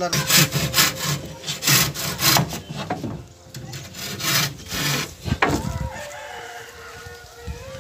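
Hand saw cutting a wooden plank, a run of quick rasping strokes that stops about five seconds in. A rooster crows in the background near the end.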